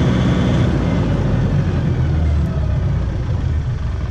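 Engine of a towable power generator running steadily close by. About two seconds in, its note shifts lower and settles.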